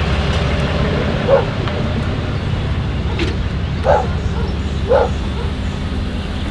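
A dog barks three times, short single barks a second or more apart, over the steady low hum of a pickup truck's engine running.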